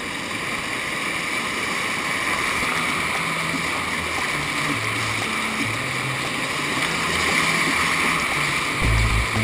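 Whitewater rapid rushing and splashing around a kayak as it runs down through the rapid, steady and slightly louder near the end.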